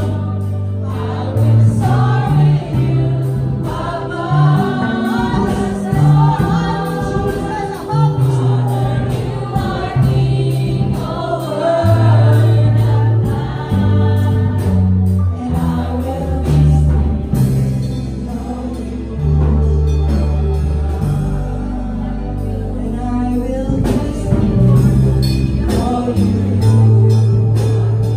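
Gospel worship song: a group of voices singing over a bass line that steps from note to note and a steady beat.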